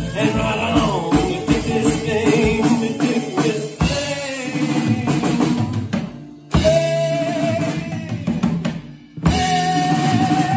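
Live band playing amplified music with a drum kit, electric guitar and keyboard, and a singing voice. The music thins out and breaks off briefly twice, about six and nine seconds in, each time coming back in loud on a long held note.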